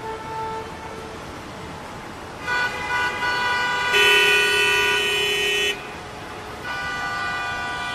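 Street traffic with vehicle horns honking: a short beep at the start, then several horns sounding together for about three seconds from two and a half seconds in, the loudest a buzzing horn from about four seconds, and another long horn from near seven seconds on.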